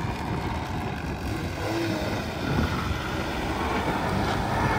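Steady rumble and rush of vehicle noise, with no single engine standing out.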